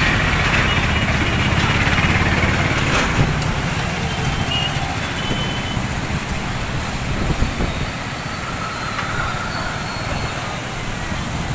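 Steady rushing noise of the Penna river in flood, muddy water churning past concrete bridge piers, mixed with road traffic.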